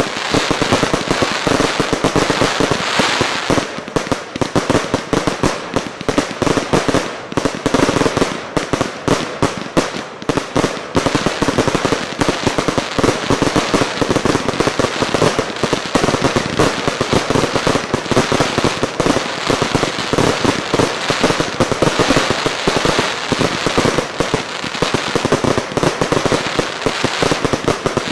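Fireworks finale barrage: rapid, overlapping bangs and crackling from many shells and multi-shot cakes bursting at once, with no let-up.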